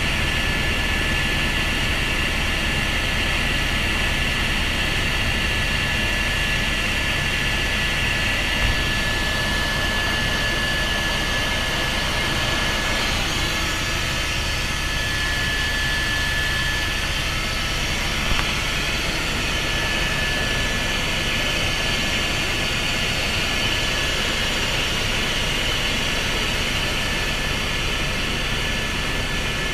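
Helicopter engine and rotor running steadily, heard from inside the cabin, with a steady high whine over a low hum. Two faint knocks, about nine and eighteen seconds in.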